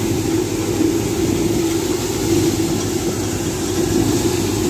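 Wheat thresher running at a steady speed, a constant machine drone with a hiss over it.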